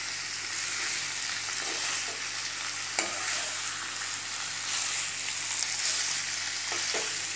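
Marinated chicken pieces sizzling in melted butter in a nonstick pan while a metal spatula stirs and turns them, with one sharp clink about three seconds in.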